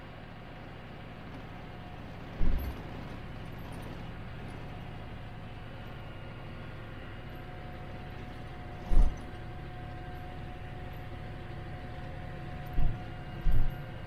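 Tractor engine running steadily, heard from inside the cab, with a faint steady whine. Four short, loud, low thumps break through: one about two seconds in, one near the middle, and two close together near the end.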